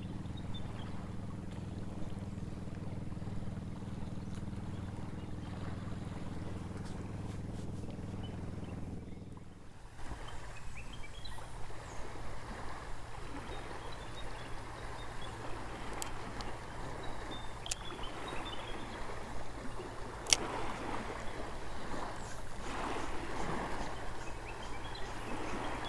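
A low, steady motor hum, likely a boat engine, for the first nine seconds or so, which then stops. After it comes splashing water and the handling of a spinning rod and reel, with a few sharp clicks.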